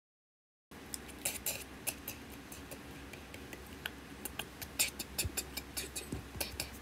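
Irregular light clicks and taps, a few each second and uneven in strength, of fingers on an iPad's touchscreen, over a low steady hum. They start about a second in.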